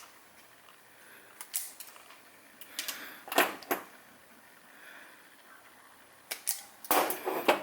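Hand wire strippers clicking and snapping as insulation is stripped off two thin wire ends: sharp clicks in small groups, the busiest and loudest cluster near the end.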